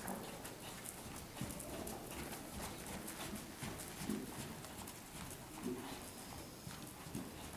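Hoofbeats of a ridden chestnut horse going around on soft arena footing: a run of short thuds.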